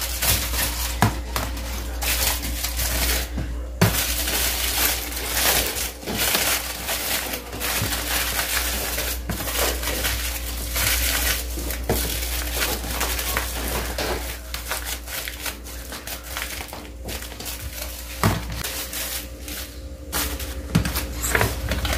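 Aluminium foil crinkling and crumpling as sandwiches are wrapped in it by hand, with a few light knocks, over a steady low hum.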